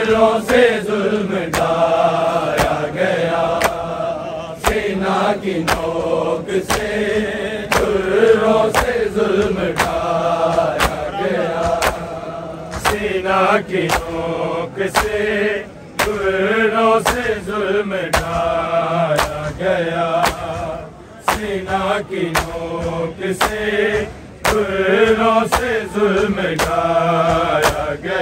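Men chanting a noha, a Muharram lament, in a repeating sung melody, over the sharp slaps of a crowd's matam chest-beating, which keep a steady beat. The singing pauses briefly between lines.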